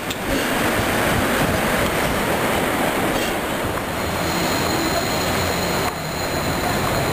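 Toyohashi Railway T1000 low-floor tram moving off along street track, giving a steady rush of running noise. The sound breaks briefly at the very start and about six seconds in.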